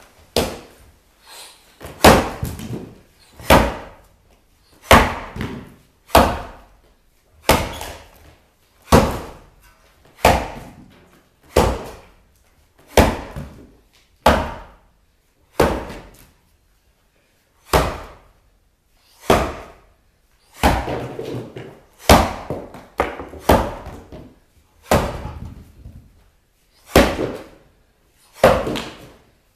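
Axe strikes chopping into a log underfoot in an underhand chop: about twenty hard blows, roughly one every second and a half, each ringing briefly in the room, with one slightly longer pause about two-thirds of the way through.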